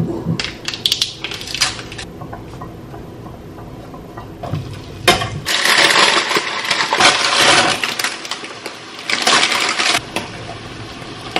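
Knocks and clatter of pans and utensils, then about four seconds of loud hissing sizzle as roasted pumpkin and onion are tipped into a hot oiled pot, with a short break partway through.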